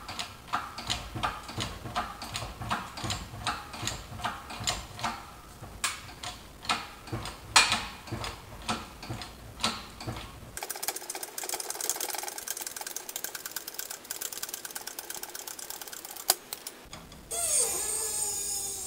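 Shop press being worked to push a press-fit wrist pin out of a connecting rod's small end: evenly spaced mechanical clicks, about two to three a second, for roughly ten seconds. Then a fast dense rattle for about six seconds, a single click, and a falling whine near the end.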